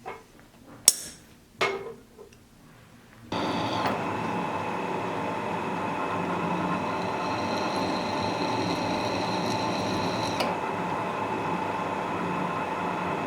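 A few sharp metal clinks, then a steady workshop machine starts abruptly about three seconds in and runs on evenly with a constant whine over its noise.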